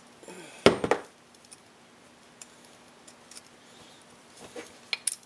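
Thin oil-scraper retainer ring clicking against an MGB piston as it is worked into the ring groove by hand: a loud cluster of metallic clicks about a second in, scattered small ticks, then a few sharp clicks near the end.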